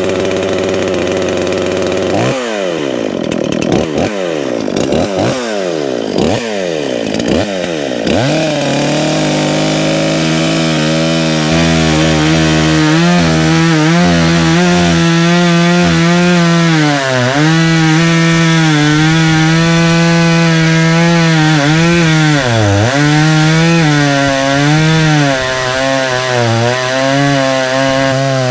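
Dolmar 510 two-stroke chainsaw idling, then revved in about six quick throttle blips. From about eight seconds in it is held at high revs through a cut into wood, its pitch sagging now and then under load.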